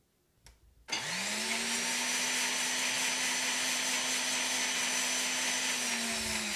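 Glass-jar countertop blender switched on about a second in, its motor spinning up to a steady whine as it blends vegetable oil and chopped garlic. Near the end the pitch starts to fall as it winds down.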